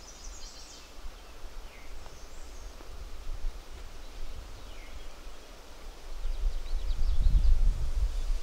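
Outdoor marsh ambience with a few faint, high songbird phrases. Low rumbling on the microphone builds near the end and is the loudest sound.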